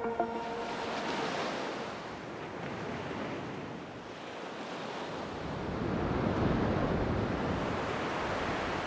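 A rushing noise that dips about four seconds in, then swells louder about six seconds in.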